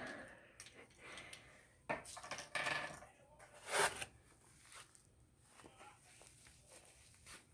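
Doll packaging being handled and unwrapped: rustling and crinkling with a few sharp clicks, loudest around two and four seconds in, then small faint ticks.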